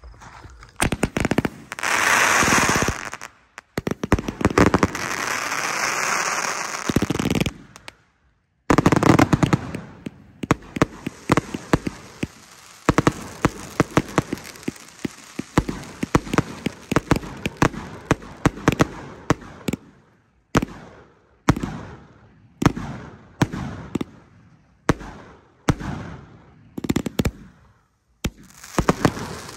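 FTS Sienna 197-shot firework cake firing. Rapid shots start about a second in, with long stretches of crackling hiss over the first seven seconds. After a brief pause comes a dense barrage of reports, and in the last third separate volleys, each fading away before the next.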